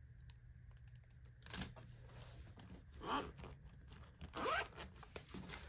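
Pens slid into a fabric pen pouch with a light click, then the pouch's zipper pulled closed in a few short rasps.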